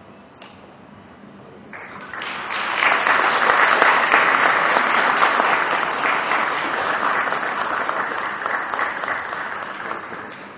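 Audience applauding. The clapping starts about two seconds in, builds quickly to a full round and tapers off near the end.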